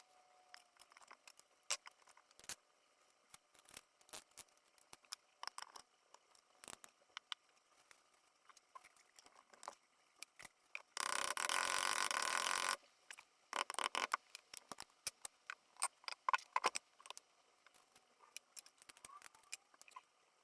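Sped-up time-lapse workshop sound of pistons being fitted into an engine block with a ring compressor: a quick, chattering run of light metal clicks and taps. A dense rushing noise about two seconds long comes a little past the middle and is the loudest thing.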